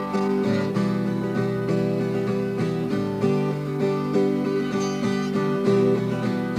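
Instrumental stretch of a song: acoustic guitar strummed in a steady rhythm.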